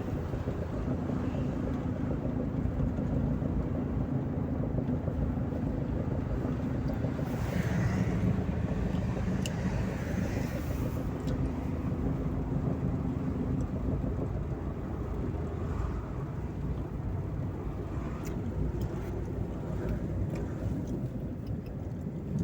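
Audi A2 1.2 TDI '3L' three-cylinder diesel engine running steadily, a little louder for a few seconds about eight seconds in.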